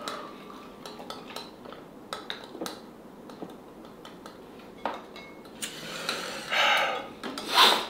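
Ice cubes clinking against a large stemmed glass as a drinking straw stirs them: a scattering of small, irregular clicks. Near the end come two louder breathy rushes.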